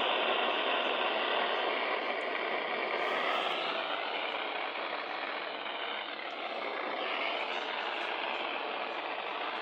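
Steady hiss of radio static from a receiver, an even band of noise with no clear words.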